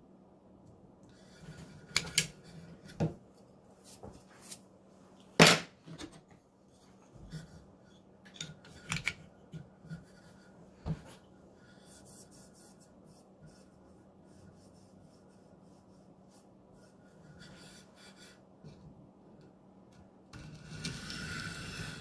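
Scattered clicks and knocks of a knife and an Edge Pro sharpener's stone being handled and set in place. About two seconds before the end, a diamond stone starts scraping along the Maxamet blade's edge.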